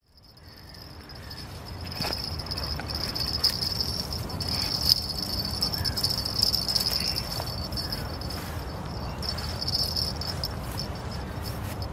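Insects chirring in meadow grass, a steady high-pitched buzz that fades in over the first two seconds, over a low rumble, with a few sharp clicks.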